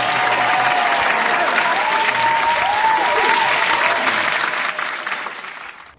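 A crowd clapping, with a few wavering cheers over the applause, starting abruptly and fading out near the end: an added applause sound effect.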